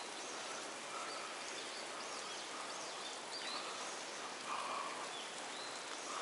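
Steady hiss of a small creek's running water, with a few faint short chirps of birds scattered through it.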